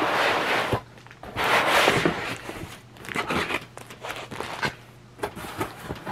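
Packaging crinkling and rustling as a new laptop's box contents are handled: two loud rustles in the first two seconds, then lighter rustles and small clicks.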